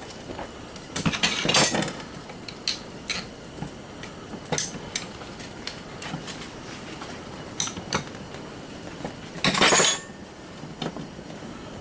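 Metal parts of a garage door opener's motor clinking and knocking as it is taken apart, a dozen or so light taps spread out, with one louder half-second scrape of metal near the end.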